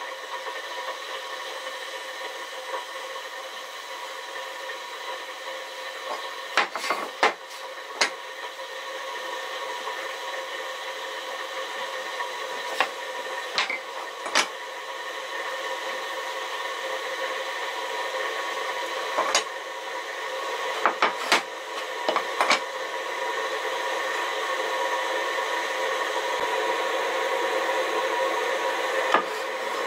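An electric power tool running steadily against wood with a whining hum, slowly getting louder, broken by a dozen or so sharp knocks.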